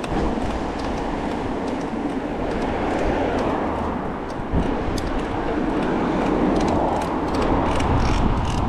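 Mountain bike rolling along a tarmac road: a steady rush of tyre and wind noise with a low rumble, broken by frequent small clicks and rattles from the bike.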